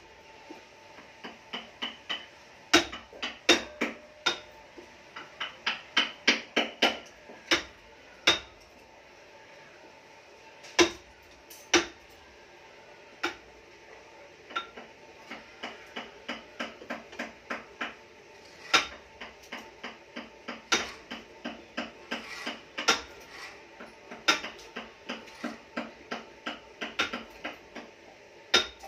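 Hand carving wood with a hammer and chisel: the hammer taps the chisel into the wood in irregular runs of quick light taps, broken by a few harder single blows.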